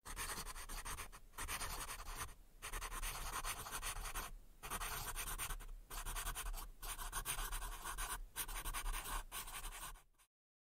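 Scratchy writing sounds: a tip dragged across a surface in about eight strokes of one to two seconds each, with short pauses between them. They stop about ten seconds in.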